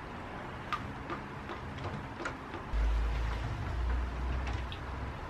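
Engine oil being poured from a plastic jug through a plastic funnel into the engine's filler, with light plastic clicks and knocks from the jug and funnel. About halfway through, a low wind rumble on the microphone comes in and is the loudest sound.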